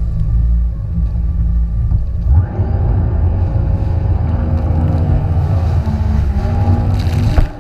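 Jet ski engine running under a heavy low rumble; about two and a half seconds in its pitched engine drone comes through clearly, and near the end a sudden loud hit.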